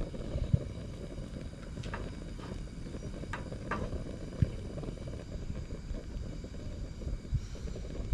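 Fish fillets frying in oil in a pan on a portable butane stove: a steady low rumble with a few faint crackles, and a single sharp knock about four and a half seconds in.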